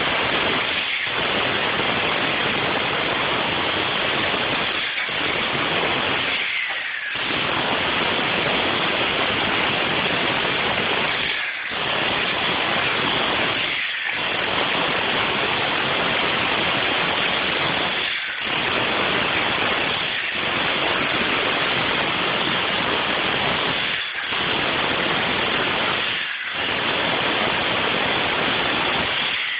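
Jackhammer hammering in long, loud runs, stopping briefly about nine times, every two to six seconds, heard through a phone's narrow-band microphone.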